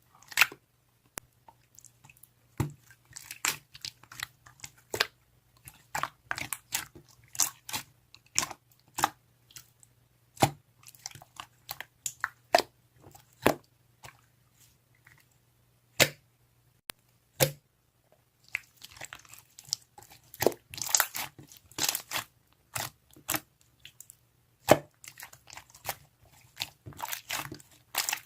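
Irregular close-up clicks, taps and crinkles of things being handled, busier with rustling and crinkling about two-thirds of the way through, over a faint steady hum.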